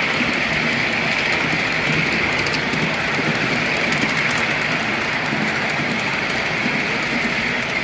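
5-inch gauge miniature train with a model Class 37 locomotive running along the track, heard from the riding car: steady, even running noise of wheels on rail with a hiss.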